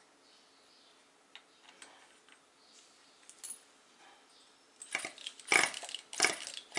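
Small metallic ticks and clicks of hand tools and parts being handled on a Tamiya TGX nitro RC car's engine, with its glow plug being taken out. About five seconds in comes a run of louder, sharper metallic clatter.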